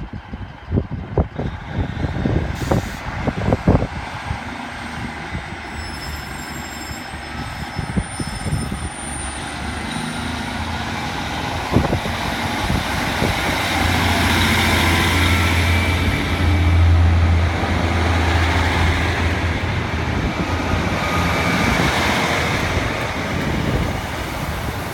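Class 150 Sprinter diesel multiple unit, coupled to a Class 153, pulling away and accelerating past: its underfloor diesel engines build to a loud low drone over the middle of the clip, with growing wheel-on-rail noise. A run of clicks and knocks in the first few seconds.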